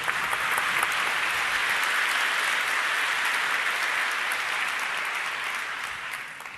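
Audience applauding: dense, steady clapping that dies down near the end.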